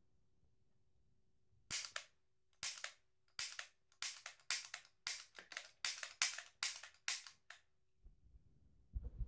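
About a dozen short, sharp hissing bursts in an uneven rapid series, each a fraction of a second long, starting about two seconds in and stopping shortly before the end, over a faint steady hum.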